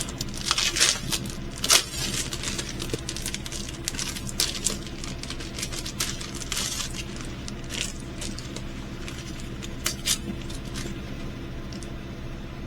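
Hands handling a diamond painting kit's packaging: irregular rustling, small clicks and light rattles, over a faint steady hum.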